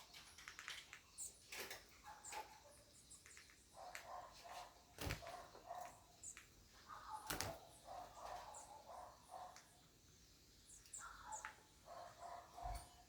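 Birds calling in short, repeated bursts with high chirps over them, and two sharp knocks.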